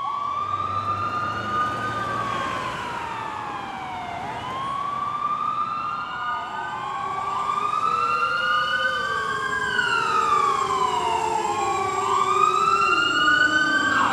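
Several sirens wailing at once, overlapping, each slowly rising and falling in pitch over a few seconds, above a steady background noise.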